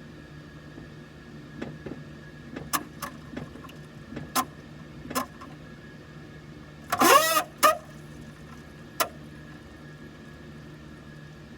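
Steady hum inside a Cessna Citation CJ3, with a string of sharp clicks and creaks. About seven seconds in comes a loud squeak that wavers in pitch, then a second, shorter one right after.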